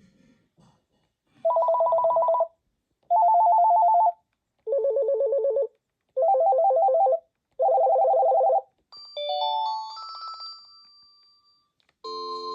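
Panasonic KX-TG994SK cordless phone playing its ringtones: five one-second bursts of a rapid two-note electronic trill, the pitch changing from one burst to the next. These are followed by a short rising run of beeping notes that fades away.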